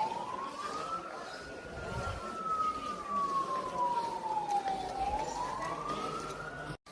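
Emergency vehicle siren in a slow wail: the pitch rises, falls over about three seconds, and rises again before cutting off abruptly near the end.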